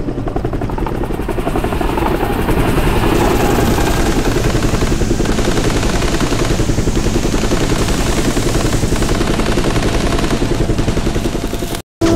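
Helicopter in flight: rotor blades beating in a fast, even pulse over steady engine noise. The sound cuts out for a moment near the end.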